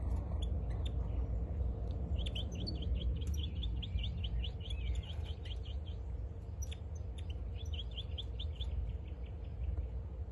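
Caged European goldfinch singing, coming into breeding condition: two runs of quick, evenly repeated high notes, about ten a second, the first starting about two seconds in and the second a little past the middle. A steady low rumble runs underneath.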